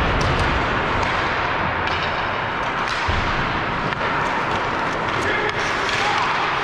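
Ice hockey rink sounds during play: a steady hiss with a few sharp clacks of sticks and puck, and low thumps at the start and about three seconds in.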